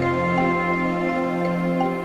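Background music: soft, gentle instrumental with sustained chords.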